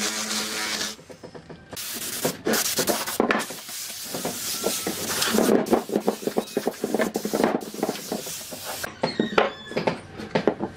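A power tool's motor runs and stops about a second in. Then come uneven scraping and rubbing noises with many short knocks and taps, from hand work on wood.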